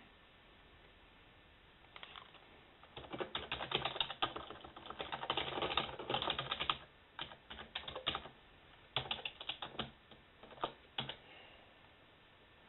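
Typing on a computer keyboard: a quiet pause, then a fast run of key clicks for several seconds, followed by shorter bursts of keystrokes with brief pauses between them.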